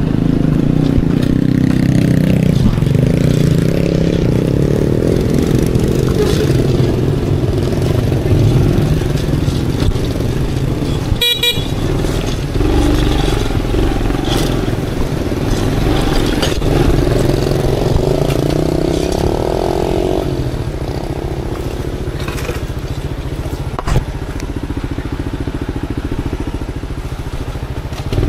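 Aveta Ranger Max Explorer motorcycle being ridden, its engine running with the pitch rising and falling as the throttle changes, and one short horn toot about a third of the way through.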